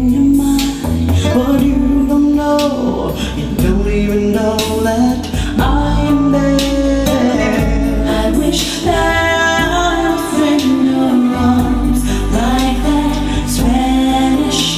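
Recorded music with a woman singing over sustained bass notes, played back through home-built speakers with Ciare PW 256 woofers and Sica 9470 tweeters.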